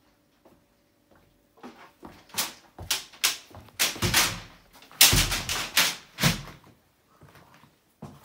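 A run of irregular knocks and clatters, thickest and loudest about five seconds in, then dying away to faint ticks.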